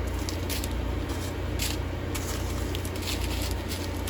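Plastic packaging being handled, with scattered crackles and crinkles over a steady low hum.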